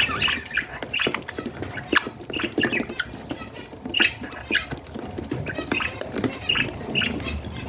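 Budgerigars making short, repeated chirps and squawks, mixed with sharp clicks.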